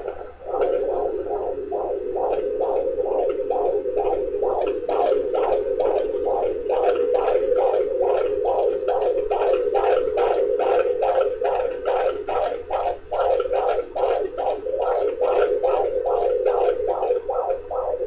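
Handheld fetal doppler picking up an unborn baby's heartbeat: a steady rush with even whooshing beats about two and a half a second, a fetal heart rate of roughly 150 beats a minute.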